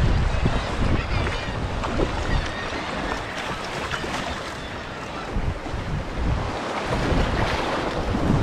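Wind buffeting the microphone over the slosh and splash of sea water around a paddled sea kayak.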